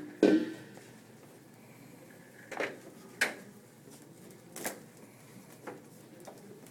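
A few separate sharp knocks and clatters of hard objects being handled. The loudest comes right at the start, and four fainter ones are spread over the following five seconds.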